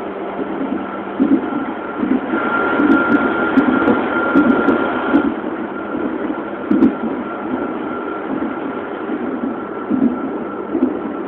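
Inside an ISAP electric train car running at top speed: a steady rumble of the wheels on the rails with repeated thumps and a steady whine. The noise grows louder for about three seconds, starting some two seconds in, with a few sharp clicks.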